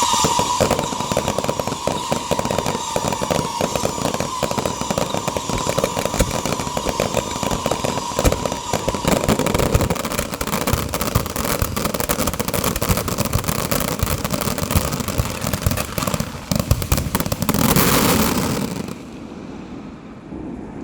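Fireworks and firecrackers crackling in a dense, rapid run of sharp pops. A high whistling tone dips slightly at the start and fades about halfway through. The crackle swells near the end, then stops suddenly.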